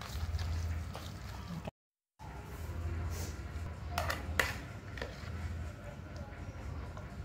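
A metal spoon stirring and scraping a wet vermicelli mixture in a plastic bowl, then scooping it out, with two sharp knocks of the spoon against the bowl about four seconds in. The sound cuts out briefly about two seconds in, and a steady low hum runs underneath.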